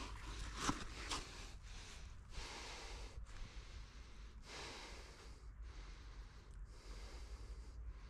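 A person breathing hard after exertion, with quick, heavy breaths about once a second.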